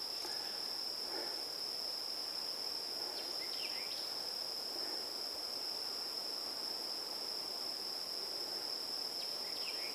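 Insects, crickets or similar, trilling in one steady, unbroken high-pitched note over faint outdoor background noise.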